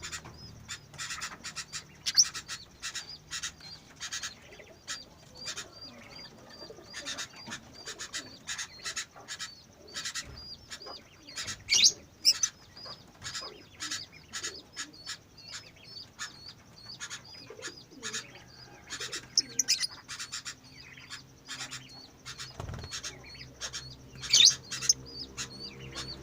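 A pet bird thrashing and flapping its wings in irregular bursts of short scuffling knocks, a few much louder than the rest, with faint high chirps repeating about twice a second. The owner describes the bird as having seizures.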